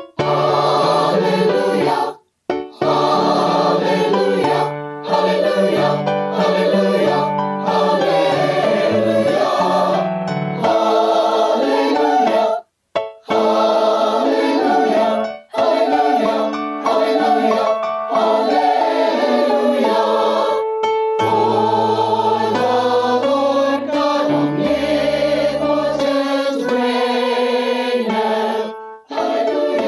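Choral music with singing voices over a sustained accompaniment; it breaks off to silence for a moment a few times.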